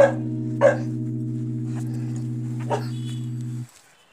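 Short, sharp dog yips, three of them, over a steady held chord of background music that stops abruptly about three and a half seconds in.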